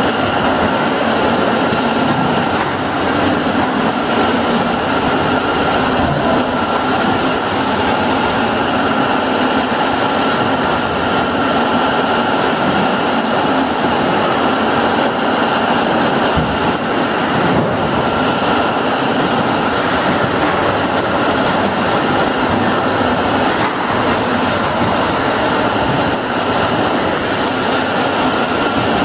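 Automatic motor-oil filling, capping and casing line running: conveyors and machinery make a loud, steady din with continuous fine clatter and a steady whine.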